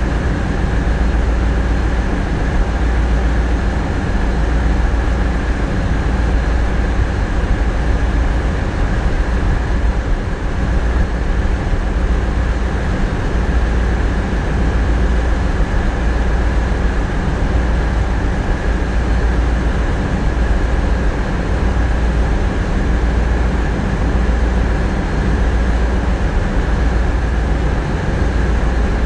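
Tugboat's diesel engines running steadily, a deep rumble with a faint steady whine, heard inside the wheelhouse.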